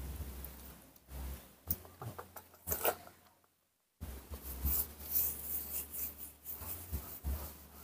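Scratchy rustling and rubbing as a cloth and tissue wipe a newborn monkey's damp fur, with small clicks of handling and a low hum at the start. The sound drops out briefly near the middle.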